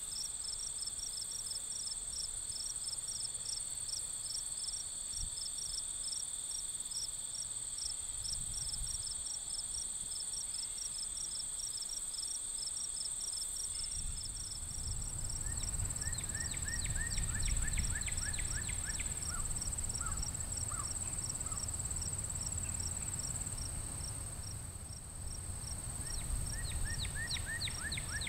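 Outdoor insect chorus: a steady high buzz and a regular chirp repeating several times a second. About halfway through a second steady tone drops out, and a quick run of falling chirps comes in twice, over a low rumble like wind on the microphone.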